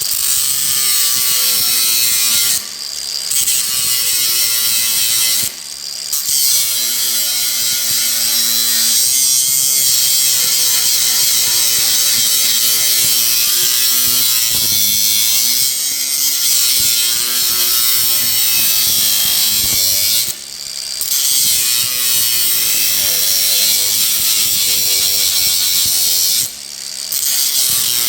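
Power grinder grinding down a small part that is being shaped as a replacement latch piece, the motor's pitch shifting as the work is pressed against it. The grinding breaks off briefly four times, at about 2.5, 5.5, 20.5 and 26.5 seconds.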